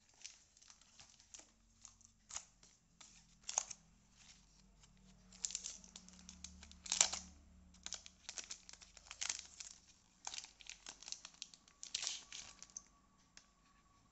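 Cellophane wrapping of a cardboard glue trap crinkling and tearing as it is pulled off by hand, in irregular crackles that are loudest about seven and twelve seconds in.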